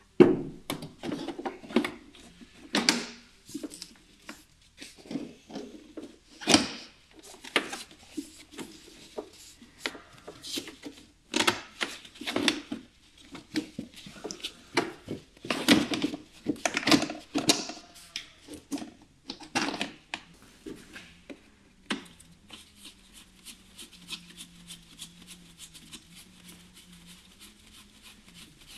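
Hard plastic clicking, knocking and rattling as the scuttle panel (rain tray) under a Renault Megane III's windscreen is handled and pressed into its clips, in irregular clusters. The clicking stops about 22 s in, leaving a faint steady hum.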